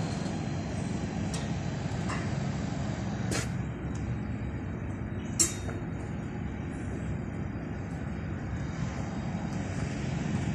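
Steady low mechanical rumble of site machinery, with a few short metal clicks and one sharp clank about five seconds in.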